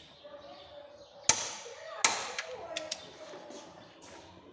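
Click-type torque wrench on the subframe bolts: two loud sharp metallic clacks, about a second and two seconds in, each ringing briefly, then a couple of light ticks.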